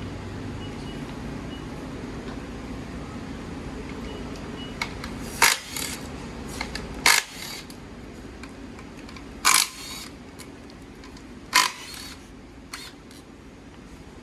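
Four sharp clacks of hard objects being handled during a teardown, spaced two or so seconds apart, with a few lighter ticks between, over a steady low hum.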